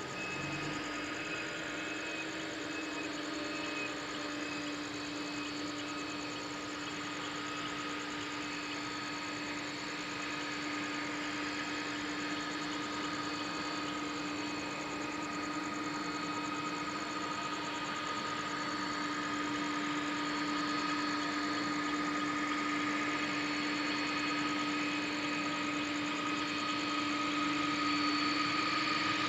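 Airbus A330 jet engines running at idle, a steady whine over a hiss that slowly grows louder toward the end, as the airliner taxis.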